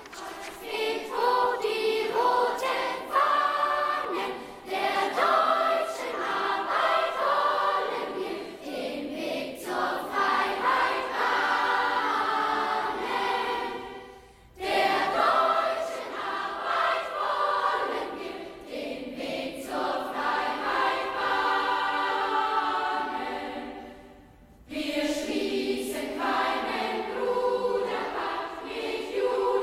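Large children's choir singing a Nazi youth song, breaking off briefly twice between phrases.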